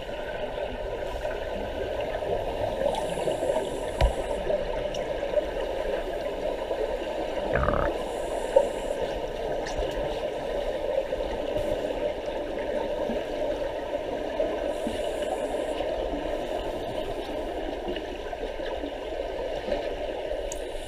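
Underwater pool ambience heard through a camera housing: a steady rushing noise with scuba divers' exhaled bubbles, with brief hisses every few seconds and a couple of sharp knocks.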